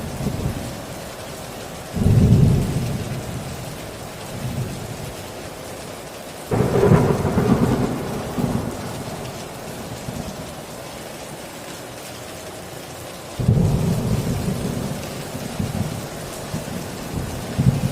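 Heavy rain pouring steadily on a tin roof, with thunder breaking in four sudden low rumbles that die away over a second or two. The one about six and a half seconds in is the sharpest crack.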